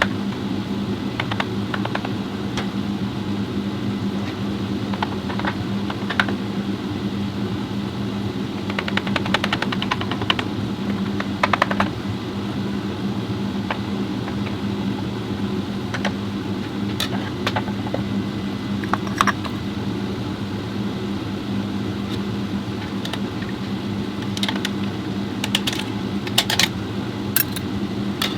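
Steady mechanical hum with light clicks and ticks scattered over it, a few in quick runs.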